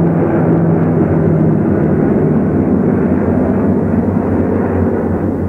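Propeller aircraft engines droning steadily in flight, a deep even hum with a rough, noisy edge.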